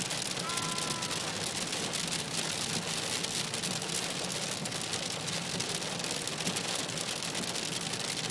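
Rain and hail pelting the car's roof and windscreen, heard from inside the car: a dense, steady hiss made of countless tiny ticks.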